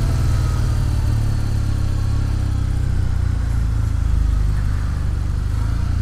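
Motorcycle engine running steadily at low revs while the bike rolls slowly, heard from the rider's own machine.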